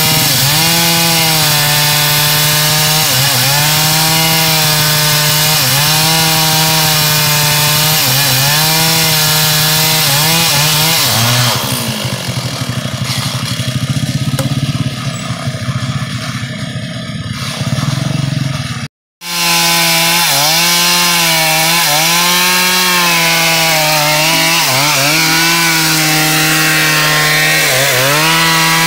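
Chainsaw running at full throttle and cutting into a teak trunk, its pitch sagging and recovering again and again as the chain bites into the wood. About twelve seconds in, the pitch falls and it runs lower and quieter for several seconds. After a momentary gap of silence, the full-throttle cutting resumes.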